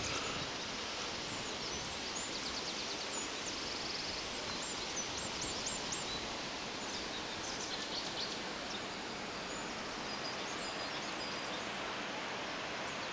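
Steady rush of the Ayun stream's water running over its falls, with small birds chirping in quick high series during roughly the first two-thirds.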